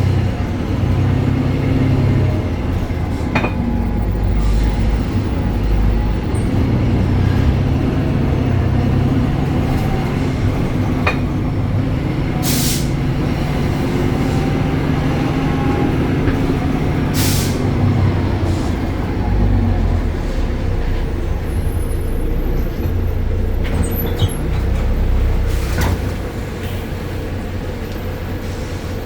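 BredaMenarini Avancity Plus city bus's Deutz Euro 5 diesel engine and ZF driveline running under way, with the engine note rising and falling. Twice partway through there is a short hiss of air from the air system. Near the end the engine sound drops lower.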